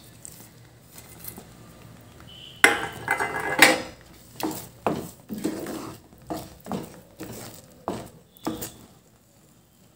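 Wooden spatula stirring thick semolina halwa in a pan: a clatter of utensils about three seconds in, then a scraping stroke roughly every half second, fading near the end.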